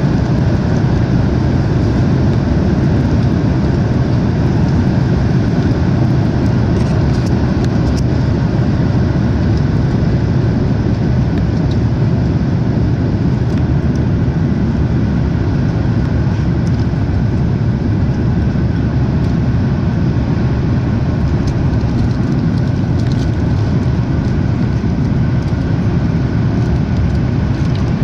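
Steady, deep cabin noise of a jet airliner climbing after takeoff: engines and rushing air heard from inside the cabin.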